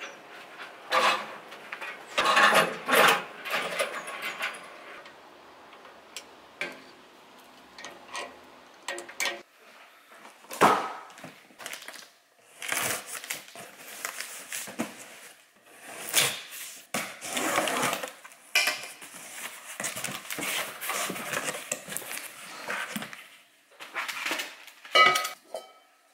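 Irregular handling noises: knocks, clatters and short rustling bursts. Near the end a carbon steel wok clanks and rings briefly as it is picked up.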